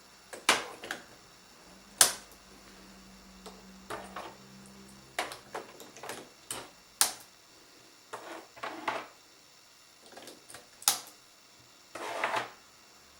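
Plastic clicks and knocks of ink cartridges being fitted back into a Canon Pixma iP7250 printer's printhead carriage: a dozen or so separate clicks at uneven intervals, the loudest about two seconds in.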